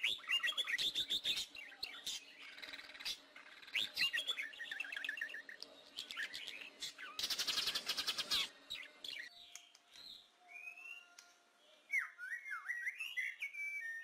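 Several forest birds singing and calling: busy chirps and trills, with a fast rapid-fire trill about seven seconds in, then clearer, sparser whistled notes that slide up and down in pitch from about ten seconds on.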